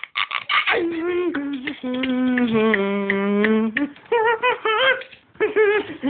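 A voice making wordless hummed and sung sounds: short warbling notes, a long held note about two seconds in that drops in pitch near its end, then more short warbling notes.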